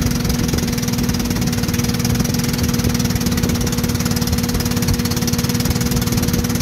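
A 1960 Evinrude Fastwin 18 hp two-cylinder two-stroke outboard runs steadily in a test barrel, its propeller churning the water. It runs evenly, with no lean sneezing.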